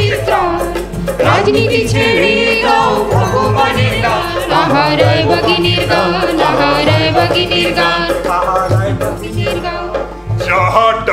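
Live folk music from a stage band: harmonium and keyboard over a steady hand-drum beat and a shaker, with a voice singing.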